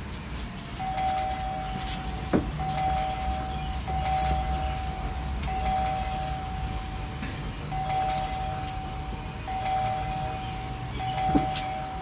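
Electronic doorbell chime ringing over and over as its button is pressed repeatedly: a steady two-note tone about seven times, each ring lasting a second or two with short gaps between, and a couple of sharp clicks.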